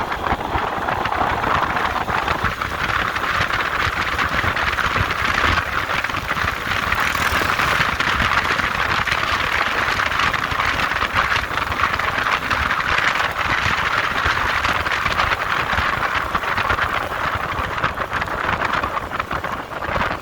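Steady rush of a moving vehicle on the road, with engine rumble and road and wind noise.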